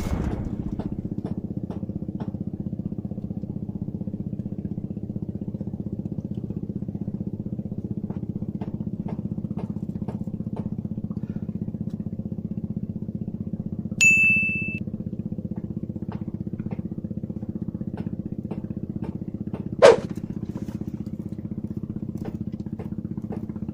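A small engine running steadily at an even speed. A short high beep sounds about fourteen seconds in, and a sharp click comes near the end.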